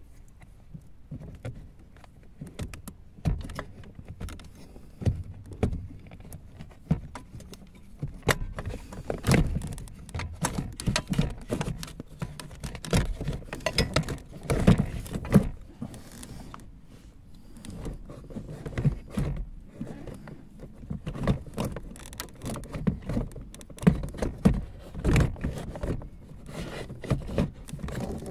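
Irregular clicks, knocks and rattles of plastic and metal parts being handled around a car's cabin blower fan housing under the dashboard, busiest in two stretches with a short lull between them.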